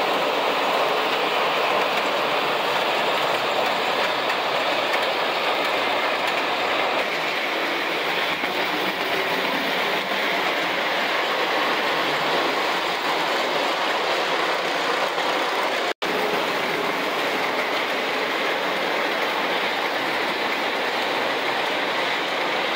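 JAD standard gauge toy trains running on three-rail metal track: a steady, loud running noise of electric motors and metal wheels on the rails. The sound cuts out for an instant about two-thirds of the way through.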